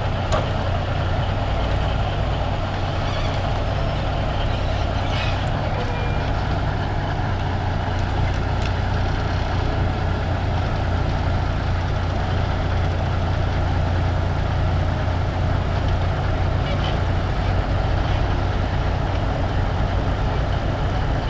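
Heavy diesel engines running steadily as a low drone: a hydraulic log loader working logs onto a parked Kenworth log truck. A few faint light knocks come through.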